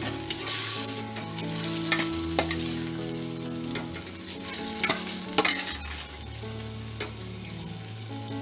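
Tomato-garlic paste sizzling in a steel pot as washed raw rice is ladled in, the steel ladle clicking sharply against the pot a few times, twice near two seconds in and twice near five seconds in.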